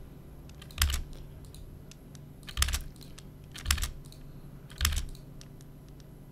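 Computer keyboard keys pressed one at a time: four distinct key strikes a second or two apart, with lighter clicks between. The keystrokes enter the 'S' (second point) option of the AutoCAD polyline arc command.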